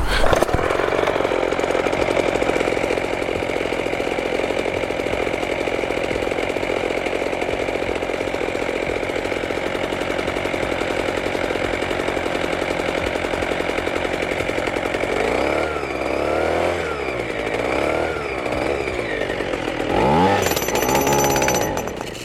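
Two-stroke petrol engine of an Atlas Copco Cobra Pro breaker running steadily. From about 15 seconds in, its speed surges up and down several times, then it cuts out near the end: the engine stalls after the repair.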